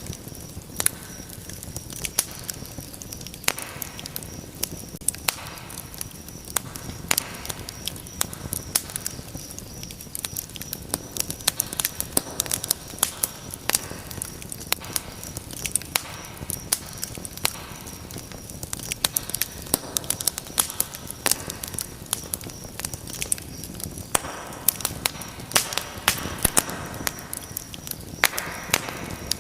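Wood fire crackling in a fireplace: many irregular sharp pops and snaps over a steady low rush of burning.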